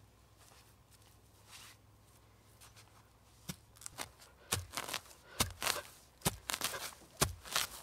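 Dry firewood being cut by hand. After a quiet start, sharp woody strokes begin about three and a half seconds in and repeat at roughly two a second, some with a dull thump.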